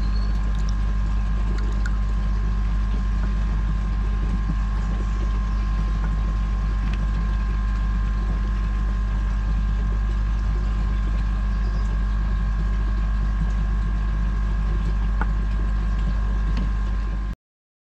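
A steady low mechanical drone, like a motor running, with two steady faint whine tones above it. It cuts off abruptly shortly before the end.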